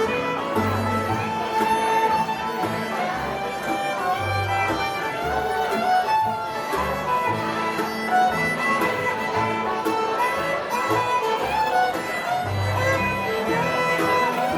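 Bluegrass band playing an instrumental break, a fiddle carrying the melody over guitar and a steady low bass line.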